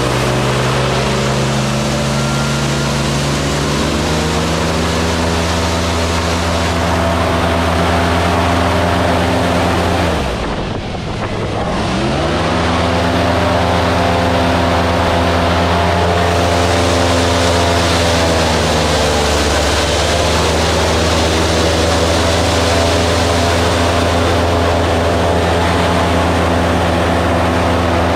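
Safari tour bus engine running steadily, heard from on board. About ten seconds in it drops in pitch as the bus slows, then picks up again as it pulls away; it eases off slightly once more around twenty seconds.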